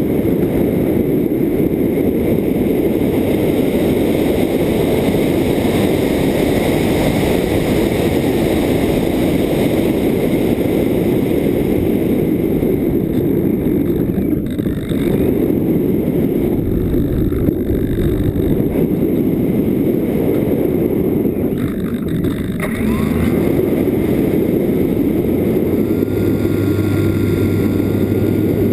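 Loud, steady rush of wind and propeller noise picked up by a camera riding on an electric pusher-prop RC glider in flight. The noise dips briefly twice, and a faint steady whine joins near the end.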